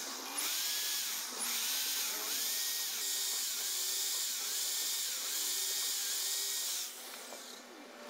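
Electric drill running at speed with a thin bit, boring holes through a thin clear plastic bottle; the motor cuts out briefly just after the start, then runs until it stops about seven seconds in.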